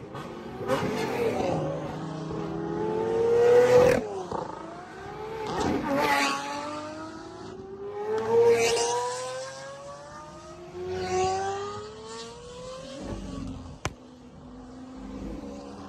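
Lamborghini supercars, among them a V12 Aventador S, accelerating past one after another, each engine note rising in pitch as the car goes by. The loudest pass comes about four seconds in, and a few sharp cracks stand out between the passes.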